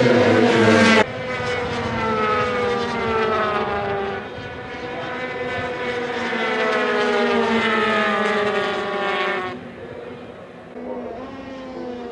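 KTM 125cc two-stroke race bikes' engines at high revs, the pitch sliding down and then climbing steadily from about four seconds in. The sound cuts abruptly about a second in and drops quieter near the end.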